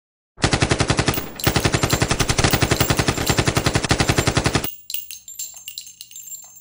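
Machine-gun fire sound effect: long, rapid bursts of about ten shots a second with a brief break after the first second. It cuts off sharply and gives way to scattered metallic clinks and a high ringing.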